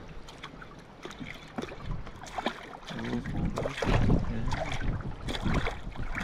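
Water lapping and splashing against a kayak hull, with wind buffeting the microphone and growing stronger about halfway through.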